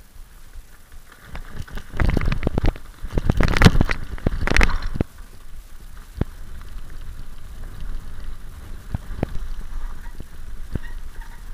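Nukeproof mountain bike rolling down a bumpy grass slope with the camera mounted on it, rattling and knocking. A loud burst of clatter runs from about two to five seconds in, then settles to a steadier rumble with scattered clicks.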